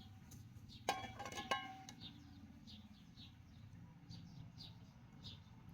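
A young animal peeping: short, high, falling peeps about twice a second. A couple of sharp clinking knocks come about a second in, before the peeps start.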